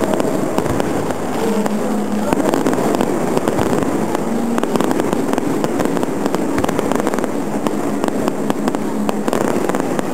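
Aerial fireworks going off in a dense, continuous run of pops and crackles as shells burst and their stars crackle.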